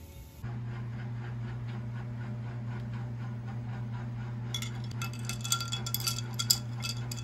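A drink being stirred with a straw in a glass jar, clinking rapidly against the glass for about two and a half seconds from a little past halfway. A steady low hum runs underneath.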